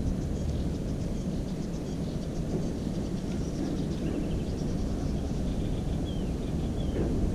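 Steady low rumbling wind noise on a small camera's microphone, with faint high-pitched bird chirps over it and a short descending whistle near the end.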